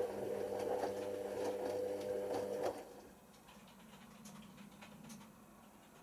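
Hoover Nextra washing machine's drum motor turning the drum with a wet load of bedding during the prewash, a steady hum with a whine, which cuts off suddenly about three seconds in as the drum stops between tumbles. Faint light ticking follows.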